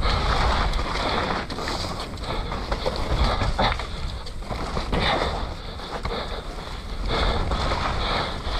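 Downhill mountain bike ridden fast down a loose dirt forest track: tyres on the soil, with repeated knocks and rattles from the bike over bumps and wind buffeting the microphone.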